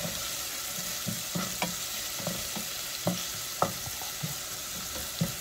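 Sliced red onions sizzling as they are lightly sautéed in a nonstick saucepan. A wooden spatula stirs them, with irregular knocks and scrapes against the pan about twice a second.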